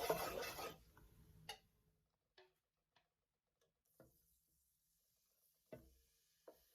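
A scraping, stirring sound in a pan fades out in the first moment, then near silence broken by about five faint, scattered clicks.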